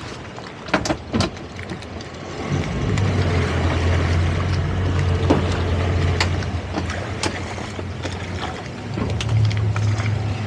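Boat outboard engines running. A few knocks come about a second in, then the engines pick up at about two and a half seconds into a steady low drone that gets a little louder and higher near the end, over a hiss of wind and water.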